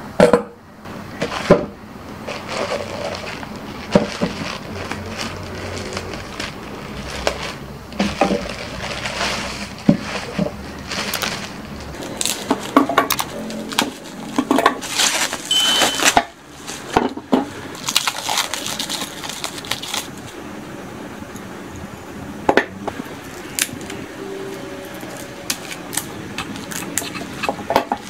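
Unpacking by hand: metal shears clicking and knocking, with bubble wrap and plastic film rustling and crinkling as they are cut and pulled off a coil of cables. Many sharp clicks are scattered through the rustling.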